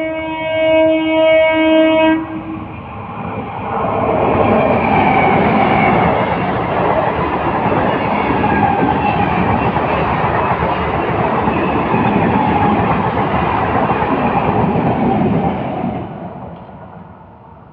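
Kolkata suburban electric local train sounding its horn for about two seconds, then rushing past with a loud, steady rolling noise of wheels on rails that fades away near the end.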